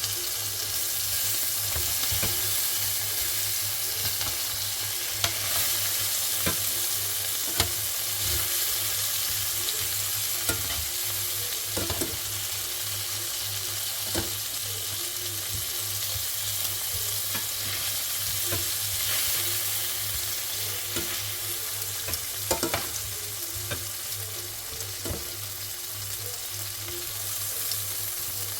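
Food sizzling as it fries in a hot pan, a steady hiss, with irregular sharp clicks and taps of a utensil against the pan as it is stirred.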